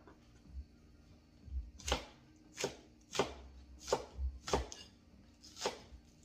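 A cleaver chopping green onions on a wooden cutting board. A couple of light taps come first, then about six sharp, unevenly spaced strikes from about two seconds in.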